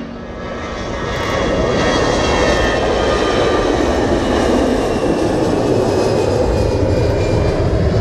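Jet airliner's engines at takeoff thrust as it rolls down the runway and climbs away: a loud, steady rumble that swells over the first second and a half, with faint whining tones gliding slowly downward.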